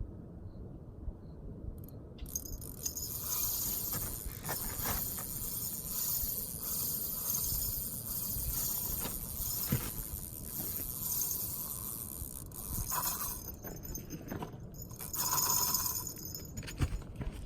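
Fishing reel ratcheting rapidly as line is pulled off it: a carp has taken the bait and is running. The rattling starts suddenly about two seconds in and thins out and comes and goes in the last few seconds.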